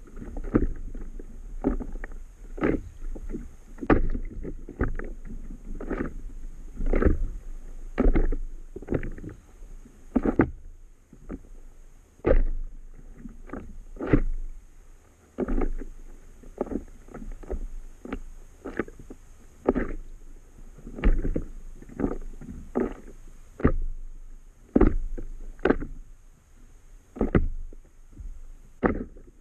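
Small waves slapping irregularly against the hull of an Itiwit 11 inflatable paddle board, about one or two knocks a second over a low rumble of water against the board.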